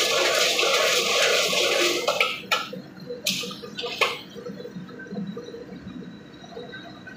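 High-pressure wok burner running with snails sizzling in the wok, cut off abruptly about two seconds in. Three short bursts of noise follow as the ladle stirs and scrapes the wok, then only a low kitchen background.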